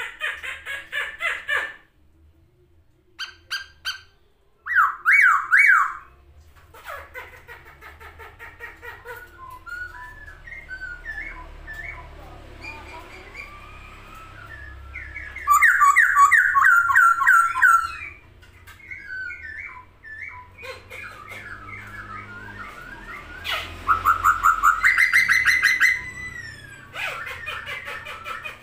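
A poksay Hongkong laughingthrush singing loudly in a varied song. Rapid repeated phrases of rising and falling notes come three times, with softer warbled and squawky notes between them.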